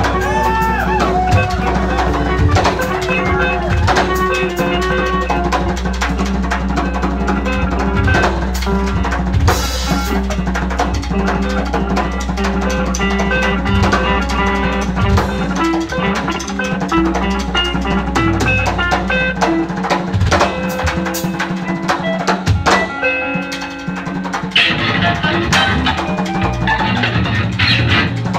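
Live improvised noise rock: electric guitars sustaining dense, droning tones over busy drum-kit playing. A deep low drone underneath drops out about two-thirds of the way through, leaving the guitars and drums.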